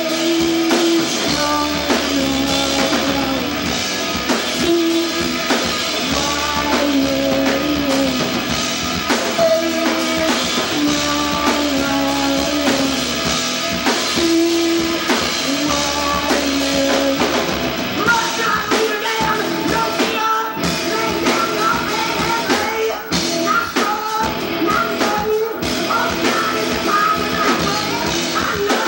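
A rock band playing live on drum kit, electric bass and electric guitar. A higher melodic part joins about eighteen seconds in.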